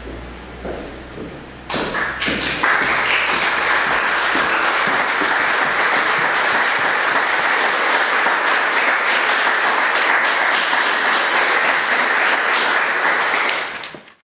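Audience applauding in a concert hall, starting about two seconds in and cut off abruptly near the end. Before it, a low room hum with a few soft knocks.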